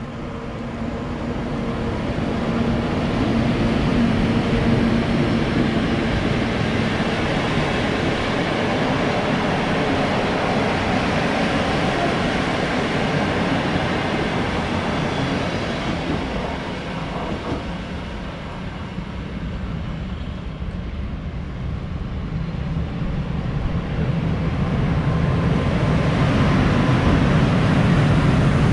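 An electric-hauled passenger train passes through at speed, a steady loud running noise of wheels on rail that builds over the first few seconds and then eases off past the middle. Near the end a freight train of open coal wagons comes through close by, with a deeper, louder running noise.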